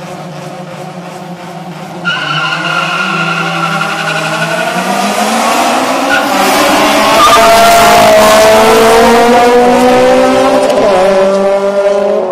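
Two Honda Civic Si cars launch side by side from a standstill and accelerate hard toward and past. Their engines go suddenly loud about two seconds in and climb in pitch. They are loudest as the cars pass, and the pitch drops as they pull away. One driver is locked out of second gear on the shift.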